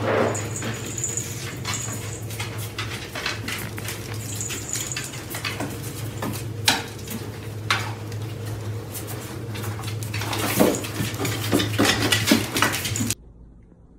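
Dog claws clicking and tapping on wooden stair treads over a steady low hum. The taps grow busier and louder near the end, when the dogs scramble at the foot of the stairs.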